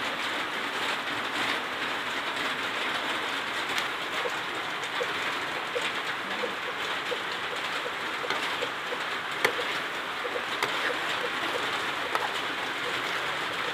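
Prahok (fermented fish paste) and eggs sizzling steadily in hot oil in a wok, with fine crackles throughout and one sharp click about nine and a half seconds in.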